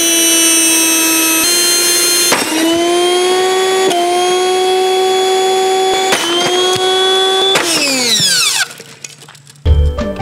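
Panasonic commercial upright vacuum cleaner motor running with a loud, steady whine. Its pitch shifts at a few brief interruptions and rises once. About three-quarters of the way in it winds down in falling pitch, and music with a beat starts near the end.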